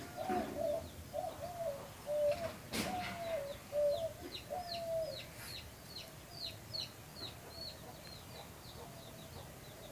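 A hen clucking in a long wavering run, then another bird giving a fading series of short, high, falling chirps, about three a second. A single sharp tap comes near three seconds in.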